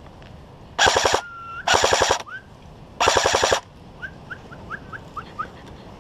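Airsoft electric rifle firing three short full-auto bursts in quick succession, a rapid mechanical rattle of roughly a dozen shots a second, the last burst a little longer. Small birds chirp short rising notes after the bursts.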